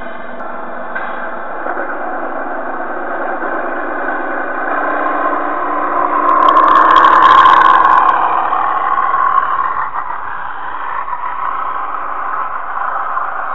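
Narrow-gauge model train with an onboard camera running along the track: a steady motor hum with wheel rattle, swelling to a louder whine in the middle before easing off again.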